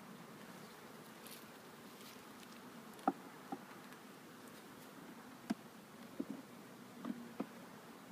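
Honeybees buzzing steadily around an open hive, with about half a dozen sharp wooden knocks and clicks as frames are lifted and handled in the hive box.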